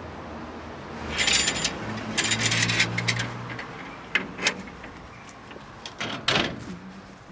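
The rusty metal-framed glass door of an old poster showcase being worked open: scraping of the metal frame and hinges in two stretches, followed by several sharp clicks and knocks as the frame is handled.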